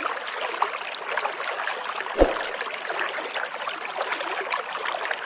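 Water running or trickling steadily, with a single dull thump about two seconds in.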